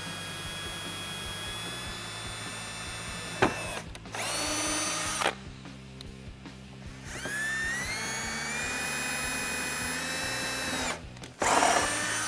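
Cordless drill with a small 5/64-inch bit drilling pilot holes through the plastic of the bumper and chin splitter. It runs in several bursts: a steady whine, a short burst around four seconds in, a whine that rises in pitch and then holds, and a brief burst near the end.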